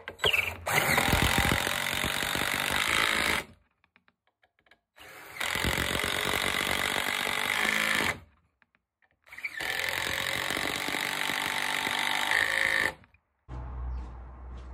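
A cordless power driver drives long wood screws into a thick timber leg, in three runs of about three seconds each with short pauses between.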